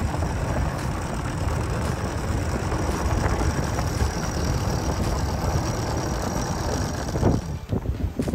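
A boat engine running steadily with a low rumble. It stops abruptly about seven and a half seconds in, giving way to a different, choppier sound.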